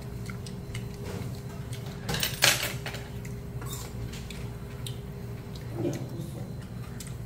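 Metal spoon and chopsticks clinking and scraping against a stainless steel bowl while mixing and scooping barley-rice bibimbap, with a louder clatter about two seconds in. A steady low hum runs underneath.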